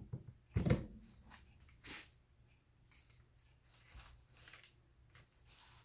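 Craft materials being handled on a work table: a few short knocks and rustles, the loudest about half a second in and another about two seconds in, with faint handling between.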